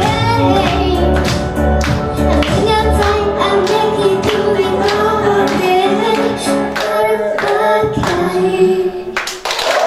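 A young girl singing into a microphone over a pop backing track with a steady beat. The bass drops out about seven seconds in, and near the end she holds a long note.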